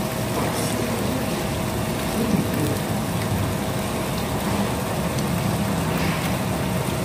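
Meat sizzling on a tabletop grill pan, a steady crackling hiss, over a constant hum.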